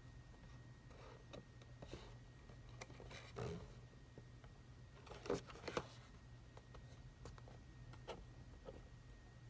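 Faint handling noise from a cardboard toy box with a plastic window being turned over in the hands: scattered soft rustles and taps, the loudest a scrape about three and a half seconds in and two quick taps around five and a half seconds in.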